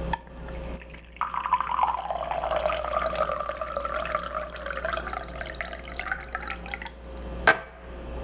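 Water running from the spigot of a ceramic water dispenser into a drinking glass as a steady pouring stream for about six seconds, its tone sliding lower over the first second or two. A single sharp clack comes near the end.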